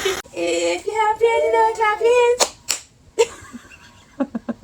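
A child's high-pitched voice in long drawn-out notes, then three sharp claps or slaps a little over two seconds in and a few lighter taps near the end.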